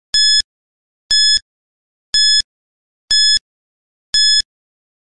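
Countdown timer sound effect: five short, high-pitched beeps, one a second, counting down the seconds from five to one.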